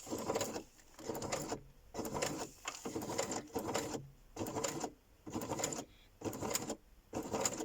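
Uten 2685A electric sewing machine stitching slowly through a thick stack of paper, stopping and starting because it has a lot to go through: short bursts of running about once a second with brief pauses between.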